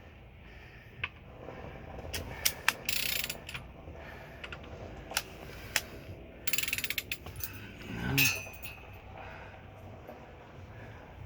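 Ratchet wrench clicking in two quick runs as a Mazda 3.0 V6 is turned over by hand, with single sharp clicks from the timing gear in between. The owner thinks those clicks come from the timing chain tensioners moving in and out, which he doesn't expect them to do. A short, louder creak about eight seconds in.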